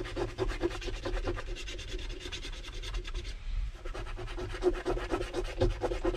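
A coin scratching the coating off a lottery scratch card: rapid short rasping strokes, easing off briefly just past halfway, then resuming.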